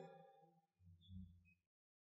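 Near silence: faint room tone that drops to dead silence near the end.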